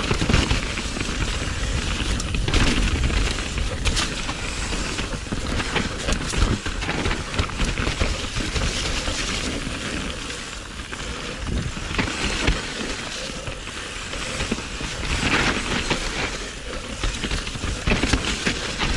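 Downhill mountain bike riding fast over rough dirt singletrack: continuous tyre and trail noise with frequent sharp clattering and rattling over bumps, under a low rumble of wind on the microphone.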